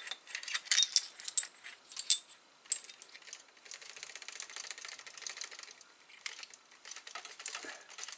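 Metal clinks and rattles from the front of a Diana Trail Scout's CO2 tube as the end cap is unscrewed and the CO2 cartridges are worked out of it. Several short ringing pings in the first three seconds, then a denser run of fine clicking and a few knocks near the end.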